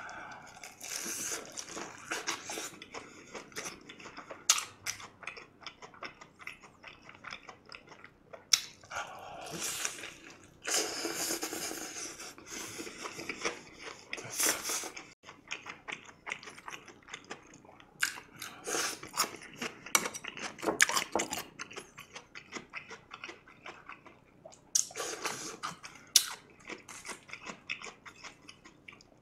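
Chewing and biting of crispy fried chicken in a spicy chilli sauce, with many sharp crunches from the coating.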